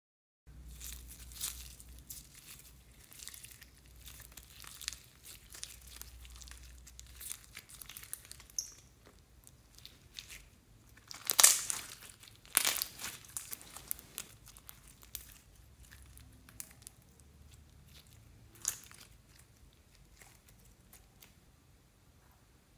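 Clear gold-glitter slime with foam beads squeezed and stretched by hand, giving scattered sticky crackles and pops. The loudest crackles come a little past halfway, and the sound dies away near the end.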